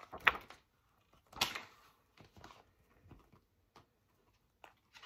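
Paper rustles and soft knocks of a hardcover picture book being handled and put down. Two louder ones near the start and about a second and a half in, then a few fainter rustles.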